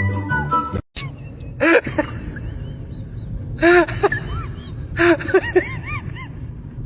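Dog whining and yowling in short rising-and-falling calls, in three bursts after music cuts off about a second in.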